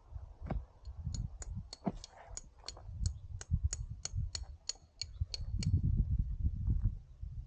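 A quick, even series of sharp, high-pitched ticks, about three to four a second, starting about a second in and stopping just before six seconds, over a low, uneven rumble of wind or handling on the microphone.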